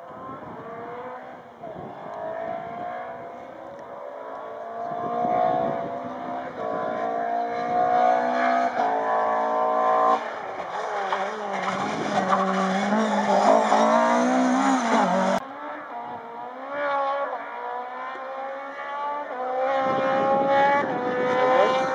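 Rally car engine, a Mk2 Ford Escort, accelerating hard up through the gears, the revs climbing and dropping back at each upshift as it comes closer. The sound cuts off abruptly about two-thirds of the way through, and a second rally car is then heard revving up through its gears.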